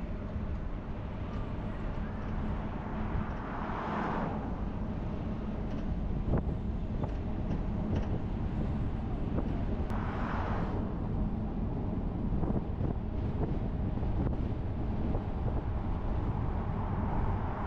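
Steady low rumble of a moving vehicle with wind on the microphone, and a hissing swell three times, about every six seconds.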